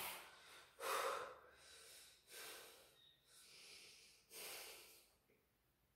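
A man breathing heavily, several deep breaths in and out about a second apart, catching his breath after a set of ab exercises.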